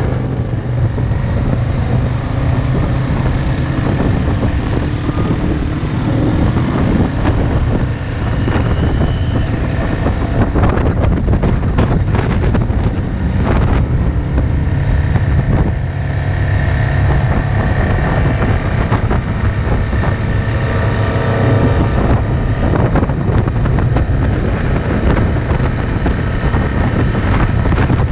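ATV engine running steadily while riding along a road, with wind rushing over the microphone.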